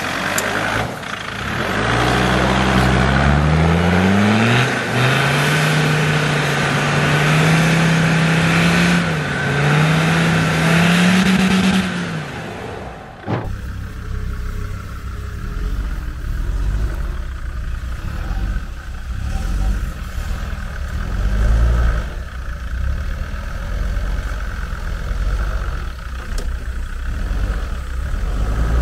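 An off-road 4x4's engine revving hard: its pitch climbs over about two seconds, then is held high under heavy throttle with a loud rushing noise over it. About 13 seconds in it cuts off abruptly, and only a lower engine rumble remains.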